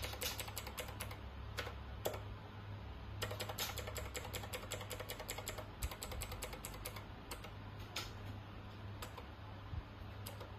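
Buttons on a handheld scoreboard controller's keypad clicking as they are pressed, in quick runs and single presses, over a low steady hum.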